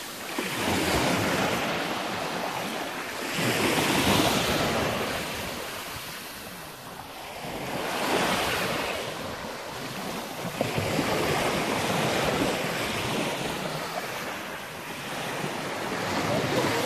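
Small waves of the Ionian Sea breaking and washing up a fine pebble shore, the surf swelling and easing about every four seconds, with some wind on the microphone.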